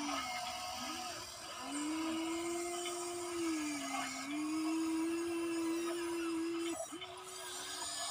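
Huina 1593 RC excavator's electric motors whining as the boom and bucket dig. The pitch sags a few times under load and cuts out briefly near the start and about seven seconds in.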